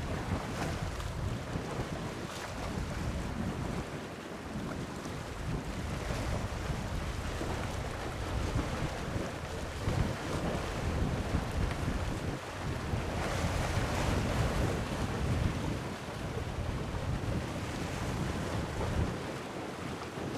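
Wind buffeting the microphone over the sound of sea waves washing, with a louder swell of wash about thirteen seconds in.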